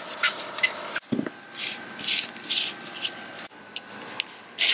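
Gloved hands handling and rubbing 400-grit sandpaper on a paint stick: a soft thump about a second in, then three short scratchy rubbing strokes.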